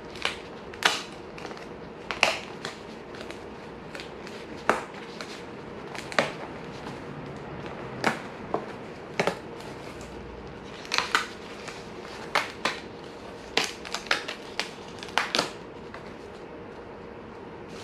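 Parts being pressed and popped out of a painted die-cut hacomo cardboard kit sheet by hand: irregular sharp snaps and crackles, about one a second and sometimes two close together, over a steady faint hum.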